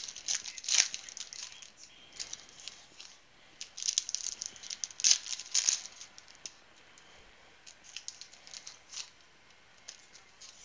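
Trading cards and thin plastic card sleeves handled and set down on a wooden table: scattered rustling with light taps and clicks in short bursts, busiest about four to six seconds in.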